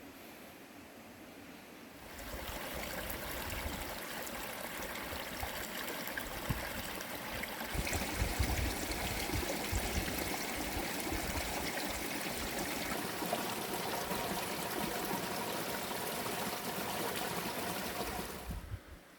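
A small stream flowing steadily, starting abruptly about two seconds in and cutting off shortly before the end, with brief low rumbles around the middle.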